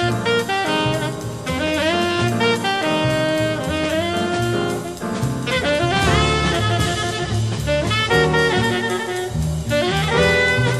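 Jazz background music: a horn melody that slides up into its notes, over a drum kit.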